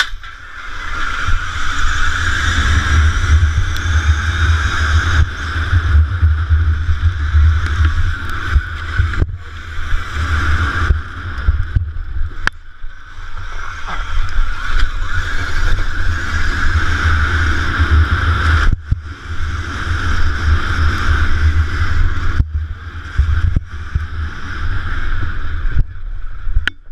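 Electric KTM Freeride dirt bike racing: the motor's whine over a heavy low rumble of wind buffeting the on-board microphone, dropping away briefly several times.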